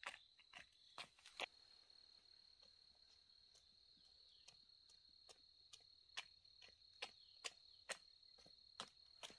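Faint, steady high-pitched insect trill that holds one tone throughout, with irregular sharp clicks scattered over it.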